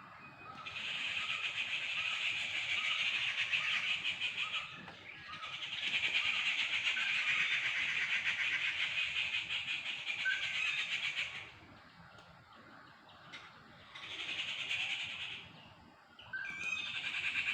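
Birds calling: long bouts of fast, harsh, high-pitched chatter lasting several seconds each, broken by short pauses. Soft repeated lower call notes come about twice a second in the first few seconds.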